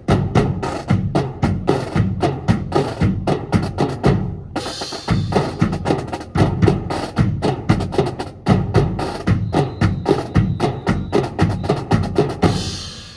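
Drill team's drum section of snare and bass drums playing a fast marching cadence of dense, rapid strokes. There is a brief break about four seconds in, and the playing stops just before the end.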